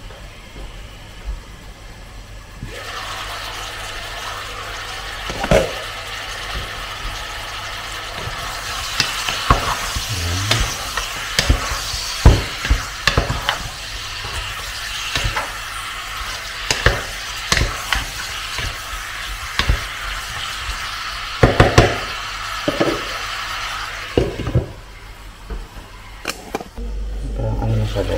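Pork pieces sizzling as they sear in hot oil in a pot, with repeated knocks and scrapes of a wooden spatula against the pot as they are stirred. The sizzling starts a few seconds in and fades out a few seconds before the end.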